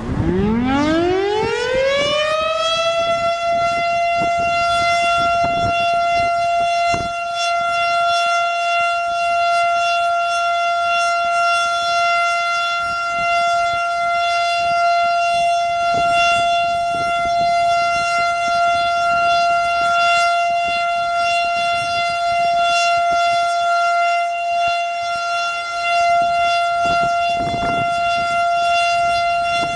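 Federal Signal STH-10A three-phase outdoor warning siren winding up from a standstill: its pitch rises over about three seconds, then it holds one loud steady tone, the alert signal.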